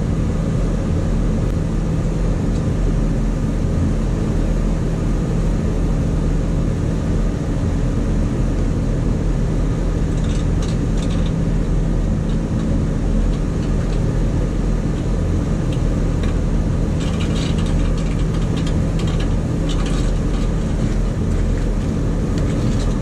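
Trane scroll compressor giving a loud, steady electrical hum, which the technician takes for a locked-up compressor that is electrically grounded. Brief crackling comes in about ten seconds in and again several times later.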